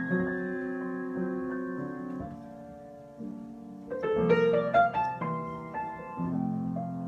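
Solo piano improvisation: held chords that fade away about three seconds in, then a louder flurry of higher notes about a second later.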